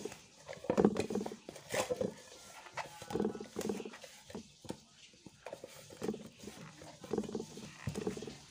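Hand kneading yeast donut dough in a metal bowl: repeated squelching pushes and knocks against the bowl, roughly one a second, as the dough is worked until smooth.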